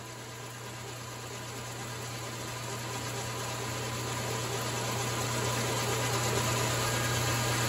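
Metal lathe running with its chuck spinning as the tool turns down the end of the shaft to the diameter for the thread: a steady low hum under a wash of cutting noise that grows gradually louder.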